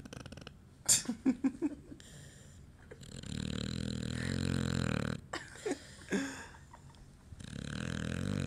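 A sleeper snoring in bed: two long, low snores of about two seconds each, one in the middle and one near the end. A quick run of four short, sharp, louder sounds comes about a second in, and a few more follow just after the first snore.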